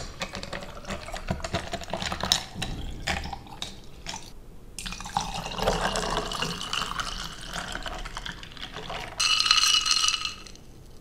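Water poured from a plastic bottle onto ice cubes in a glass mason jar, the ice crackling and clinking for the first few seconds. Then cold brew coffee is poured from a plastic pitcher over the ice in a steady stream, with a louder, higher-pitched stretch of about a second near the end.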